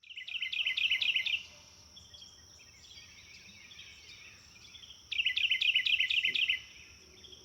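A songbird singing two loud phrases of rapid repeated down-slurred notes, one at the start and one about five seconds in, with softer bird calls between them and a steady high-pitched insect hum underneath.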